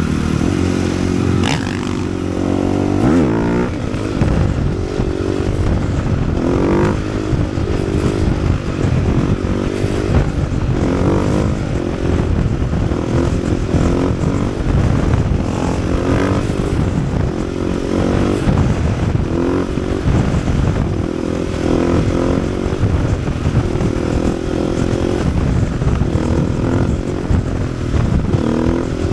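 Single-cylinder four-stroke 450 supermoto engine being ridden hard: the revs climb and drop again every second or two as the rider accelerates, shifts and rolls off the throttle.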